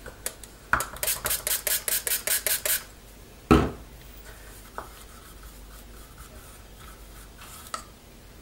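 White paint and water being stirred briskly in a small plastic cup, the tool scraping against the cup in quick strokes about five a second. A single loud knock follows about three and a half seconds in, then only faint, slow scraping.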